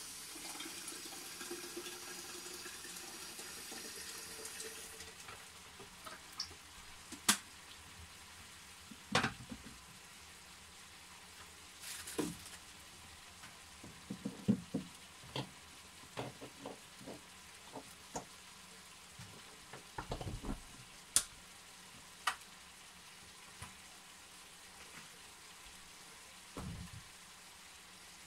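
Kitchen noises: a steady hiss that stops suddenly about five seconds in, then scattered clicks and knocks over a quiet background.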